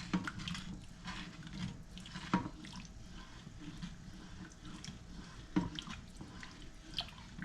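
Spoon stirring a pot of hot vinegar-and-salt brine: liquid swishing, with a few sharp clinks of the spoon against the pot, to dissolve the salt.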